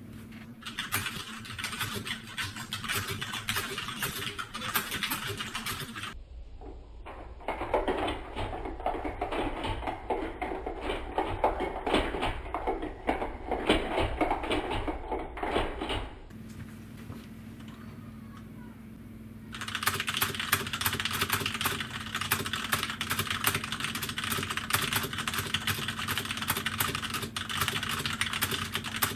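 Fast typing on a mechanical keyboard: a dense stream of rapid key clicks in separate passages, with the tone of the clicks changing between passages and a quieter lull about two-thirds of the way through.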